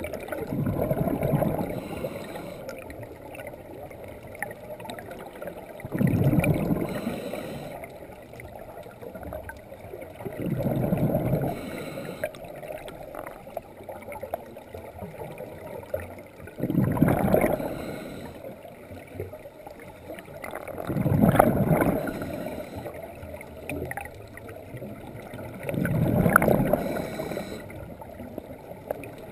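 Scuba diver breathing through a regulator underwater: six bursts of exhaled bubbles about five seconds apart, each lasting a second or so, over a steady underwater background.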